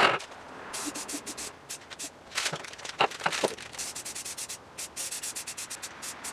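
Cloth rag rubbing briskly over a band saw's metal frame, in quick, even strokes. A short loud burst of noise comes right at the start, and a few light knocks come about halfway through.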